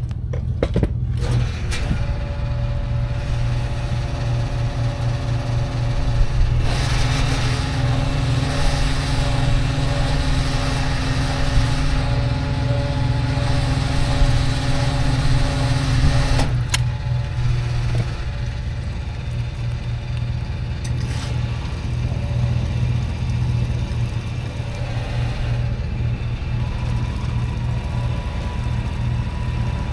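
Yamaha ATV engine idling steadily at low revs, with a louder stretch of added rushing noise for about ten seconds in the middle and a few sharp clicks.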